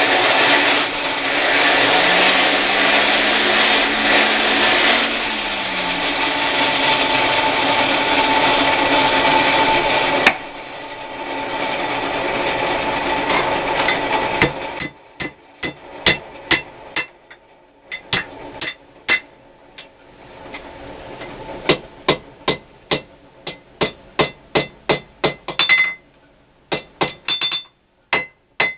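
Forge blower running with a steady whir for about the first fifteen seconds, its pitch rising and falling. Then hammer blows ringing on an anvil, about two a second, as hot horseshoe steel is forged.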